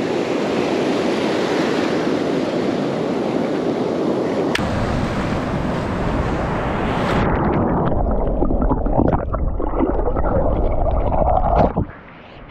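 Surf washing on the beach in a steady hiss. About seven seconds in, the sound turns muffled and rumbling with scattered crackles, then drops off sharply near the end.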